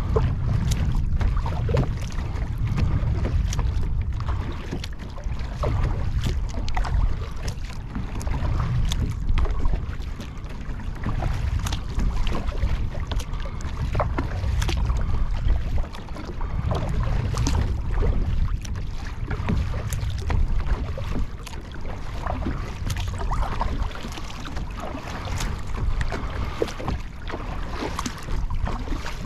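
Water splashing and lapping around a Field & Stream Eagle Talon 12 fishing kayak, with many small irregular splashes and knocks. Under it, a steady, shifting low rumble of wind buffeting the microphone.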